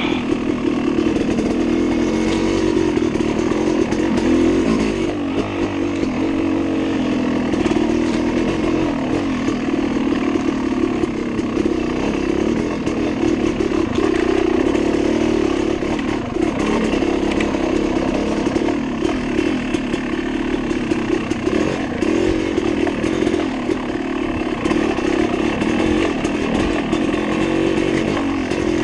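Dirt bike engine running continuously as the bike is ridden hard along a rough trail, its note wavering as the throttle changes.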